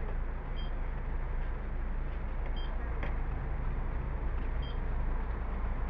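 City bus idling at a stop with its front door open: a steady low engine rumble, with a short high electronic beep about every two seconds and a single click about three seconds in.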